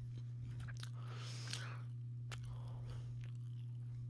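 A person chewing a sandwich close to the microphone, with a few sharp clicks and crunches, over a steady low hum.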